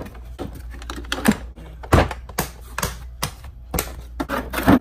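Hard plastic case of a Craftsman mechanics tool set and the tools in it being handled: an irregular run of clicks and clacks, with a few louder knocks about a second in, about two seconds in and near the end.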